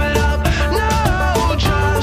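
Background music with a steady beat and a melody line over bass.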